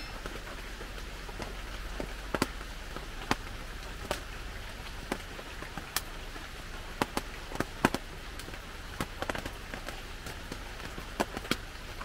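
Irregular sharp ticks, roughly one a second and the loudest about eight seconds in, over a steady hiss of forest ambience.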